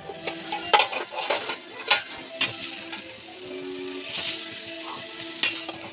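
Metal spatula stirring radish palya in a steel pan, clinking and scraping against the pan several times over the sizzle of frying.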